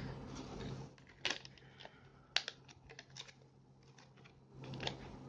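A scattering of light, irregular clicks and taps over a faint steady hum, with two sharper clicks in the first half.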